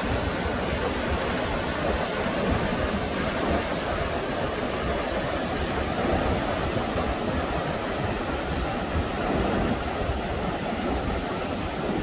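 Mountain stream rushing steadily over boulders and small rapids.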